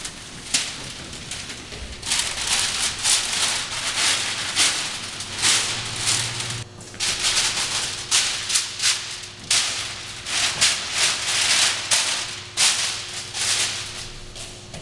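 Rustling, rattling noise in a string of uneven half-second to one-second bursts, like something being shaken or brushed through.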